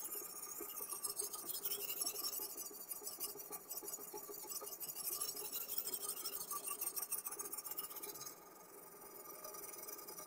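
Sharpening stone of a guided knife-sharpening system stroking rapidly back and forth along the edge of an M390 steel chef knife, a dry abrasive scraping that stops about eight seconds in.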